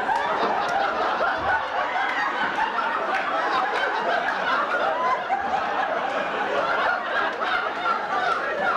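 Audience laughing steadily, many voices at once without a break.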